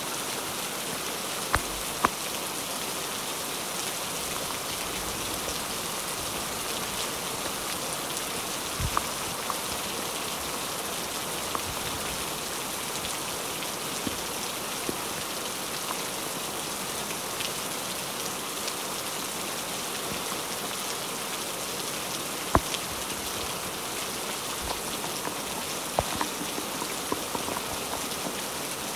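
Steady rain falling on a Napier truck tent's fabric and the pickup around it, with a few louder single drops striking now and then.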